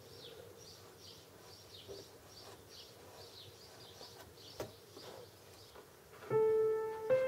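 Background music: a quiet stretch with faint, repeating bird-like chirps, then piano notes come in loudly about six seconds in.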